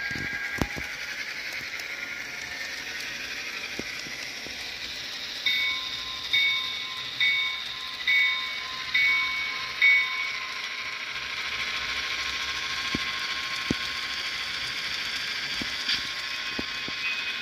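Sound-equipped HO scale Intermountain FP9 model locomotive running with its decoder's diesel engine sound coming through its small speaker, over wheel noise on the track. About five seconds in, the locomotive bell rings six times, a little under a second apart.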